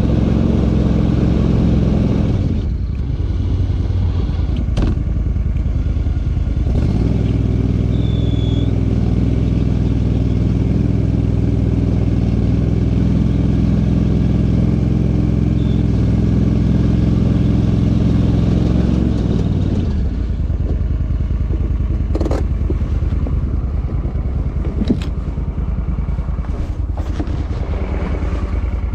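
Argo eight-wheeled ATV's engine running steadily from the driver's seat, shifting a little in pitch a few seconds in. The engine stops about twenty seconds in, leaving a rushing noise with a few sharp clicks and knocks.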